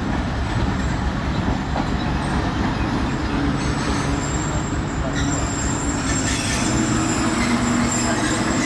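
Train running on the rails with a dense, steady rumble. From about halfway, thin high-pitched squealing of steel wheels against the rail joins in.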